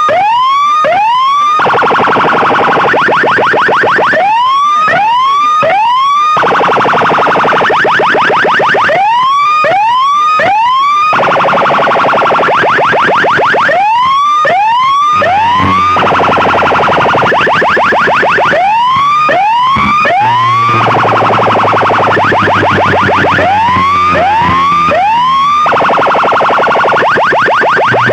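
A big sound system's speaker boxes blasting a siren-effect competition track, very loud. Groups of three or four rising swoops, about two a second, alternate with stretches of fast buzzing pulses, and a deep steady hum joins in about halfway through.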